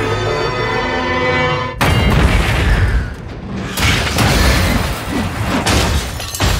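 Film score music with held tones, cut off about two seconds in by a sudden loud crash and explosion with deep rumbling booms; a second burst of explosion comes about two seconds later as the wreckage burns.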